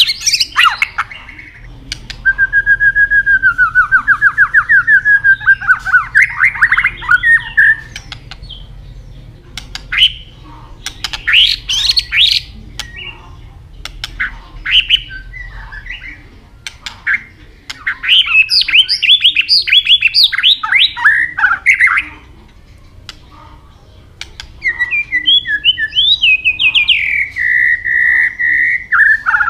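White-rumped shama singing: three long runs of fast repeated notes, with short, sharp call notes scattered between them.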